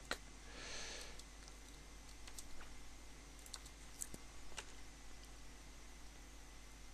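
Faint, scattered clicks of a computer keyboard and mouse, a handful of separate clicks spread over several seconds, against a low steady hum.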